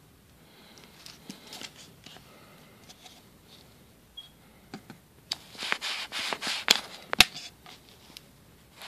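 Clear plastic bottle pressed and worked against carpet to crush a bug: crinkling and crackling of the plastic. The sound is faint and scattered at first, then turns into a dense run of crackles about five seconds in, with a sharp click near the end of the run.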